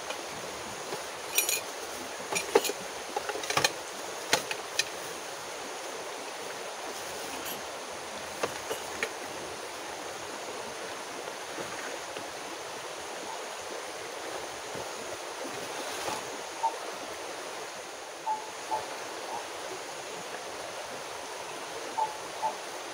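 Steady rushing of a large river flowing past. Over it come short clicks and knocks of gear being handled out of a backpack, several in the first few seconds and a few more later on.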